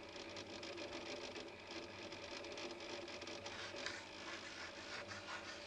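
Chalk scratching and tapping on a blackboard as a word is written, the strokes coming thickest in the second half, over a faint steady hum.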